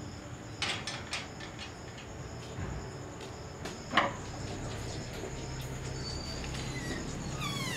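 A metal sliding bolt on a wooden door is drawn back with a sharp clack about four seconds in, and the door is pushed open with a short squeaky creak near the end. A few lighter metal clicks from an iron gate come about a second in. Crickets chirp steadily behind.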